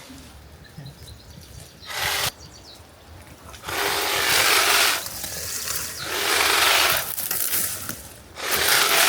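Repeated rough rasping strokes of a hand tool being worked, four in all, each about a second long, a couple of seconds apart.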